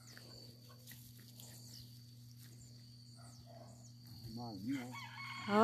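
Quiet farm ambience: faint footsteps on a dirt path strewn with cut grass, under a steady high insect tone and a low hum. About four seconds in, a short voiced call bends up and down in pitch, and just before the end a brief spoken "Hã?".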